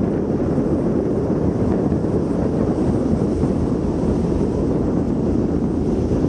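Steady low rumble of wind buffeting the microphone on a ferry's open deck, mixed with the ship's engine running as it pulls away from the berth.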